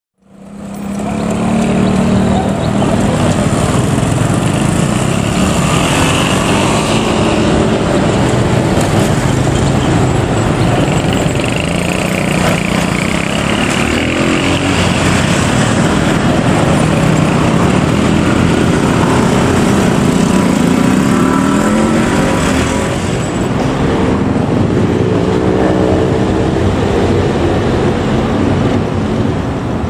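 Motorbike and scooter engines running and pulling away in busy road traffic. The engine notes rise in pitch as bikes accelerate, over a steady wash of traffic noise.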